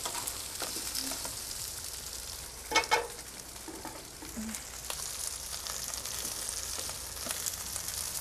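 Duck carcass and vegetables sizzling in rendered duck fat in a pan on a gas grill, with small clicks of tongs turning them. About three seconds in, the tongs strike metal with a short ringing clank.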